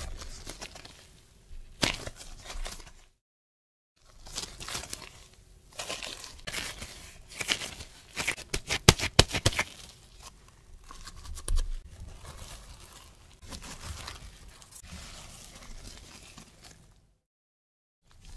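Disposable-gloved hands rounding soft whole wheat bread dough in a wooden bowl: gloves rustling and crinkling and dough squishing and patting, with a cluster of quick sharp clicks about nine seconds in. The sound drops out completely twice, briefly.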